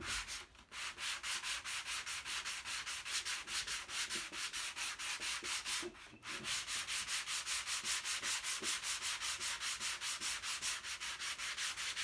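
Hand sanding of cured body filler (Bondo) with 80-grit sandpaper on a sanding block: quick, even back-and-forth scratching strokes, about five a second, with two short breaks. The strokes knock down high spots and roll over the edge to level the contour of a filled crack.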